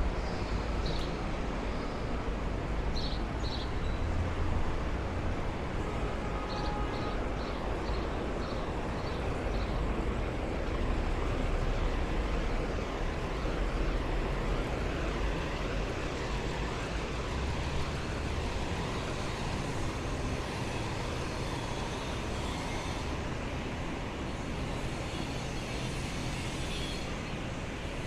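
Steady city street traffic: a continuous hum and low rumble of passing cars and trucks, with a few short high chirps in the first ten seconds.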